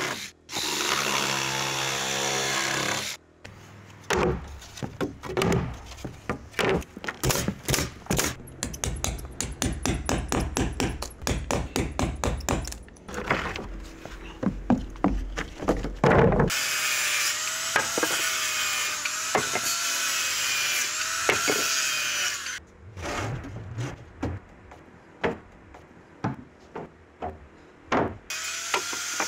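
Carpentry work on a timber roof frame: a power tool runs in stretches, broken by many sharp knocks and clicks of wooden boards being handled and fastened, some in quick even runs.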